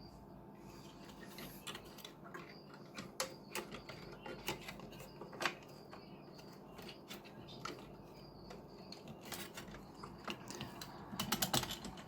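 Irregular light clicks and taps of small plastic and metal parts being handled as an amplifier's LED power-indicator module is fitted back into the front panel, with a few sharper knocks and a cluster of clicks near the end.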